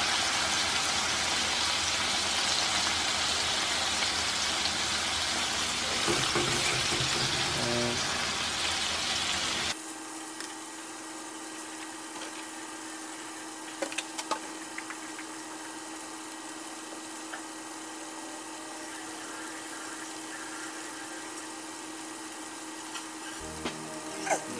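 Chicken tenders sizzling in olive oil and butter in a hot frying pan, loud and close at first. About ten seconds in it cuts suddenly to a quieter sizzle with a steady hum and a few clicks.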